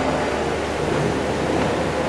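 Steady fan-like rushing noise of workshop machinery running, with a faint low hum and no distinct knocks or clicks.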